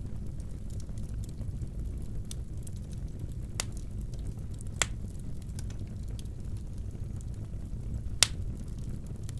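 Wood fire burning in a fireplace: a steady low rumble with scattered sharp crackles and pops, three of them louder, at about three and a half, five and eight seconds in.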